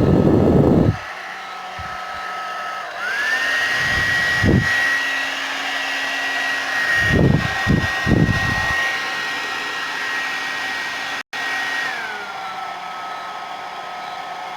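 Suzuka hair dryer running, its motor whine stepping up to the higher speed about three seconds in and dropping back to the lower speed near the end. Both switch settings work now that the glued-stuck switch has been freed. Gusts of air buffet the microphone several times.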